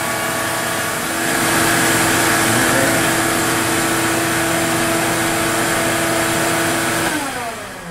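CNC router spindle running steadily through a cut, a whine over a broad hiss; about seven seconds in it switches off and spins down, the whine falling in pitch as the job ends.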